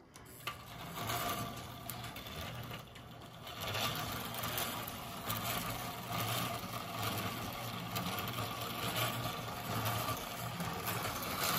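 Lionel No. 42 single-motor standard gauge electric locomotive running on tinplate track: a steady electric motor hum with gear whir and a rattling clatter of wheels on the metal rails, starting up at the beginning.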